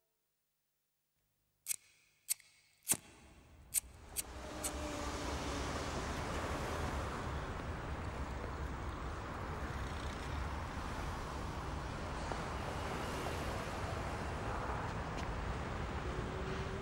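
Street ambience with a steady low rumble of traffic, coming in about four seconds in after several sharp clicks.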